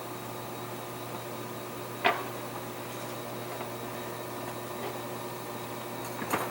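Steady background hum with several faint steady tones, broken by one sharp click about two seconds in and a few quick clicks near the end.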